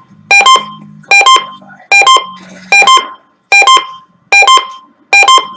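An electronic alarm beeping in quick double pulses: seven loud pairs, about one pair every 0.8 seconds.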